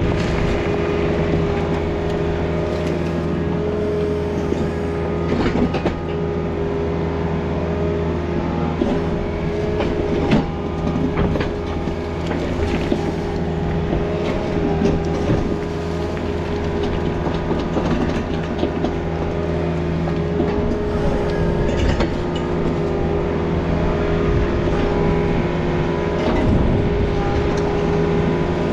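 Takeuchi excavator's diesel engine running steadily under load while the bucket works rocky soil, with scraping and a few sharp clanks of rock against steel, the loudest about ten seconds in.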